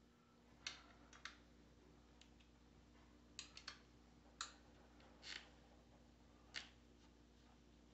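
Small, irregular metal clicks and taps, about eight in all, as a bolt and bracket are fitted on an aluminium radiator guard, over quiet room tone.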